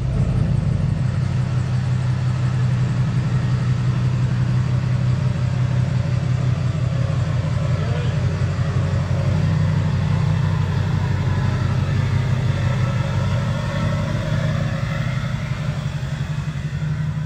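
Duramax 6.6 L V8 turbodiesel in a Chevrolet 2500HD pickup, just started and running steadily near idle while the truck creeps forward.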